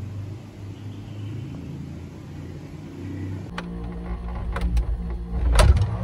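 A steady low hum, then a few sharp clicks and knocks over a low rumble, the loudest just before the end, as a refrigerator is opened.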